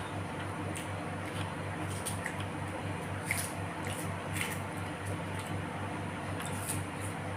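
Wet, squishy chewing and mouth sounds of a person eating rice with sambal, in scattered short smacks and clicks. A steady low hum runs underneath.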